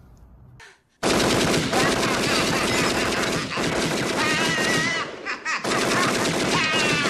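Movie sound effect of a Tommy gun firing long, continuous bursts, starting abruptly about a second in and breaking off briefly a little past the middle before firing again, with a man's voice shouting over the gunfire.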